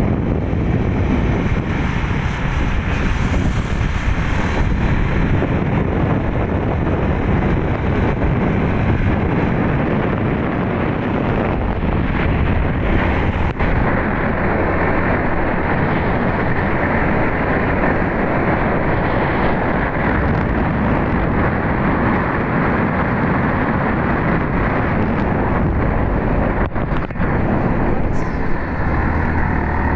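Steady rushing wind noise on the microphone of a moving motorbike, mixed with the low sound of its engine and tyres on the road.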